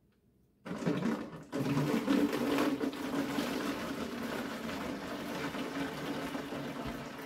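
Liquid pouring from a five-gallon plastic bucket into containers in a kitchen sink: a steady splashing pour that starts about a second in, breaks off for a moment, then runs on.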